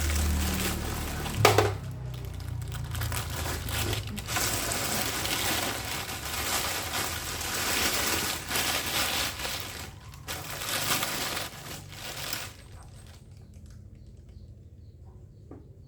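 Plastic packaging crinkling and rustling as a boxed overlock sewing machine is lifted out and unwrapped. The rustling stops near the end.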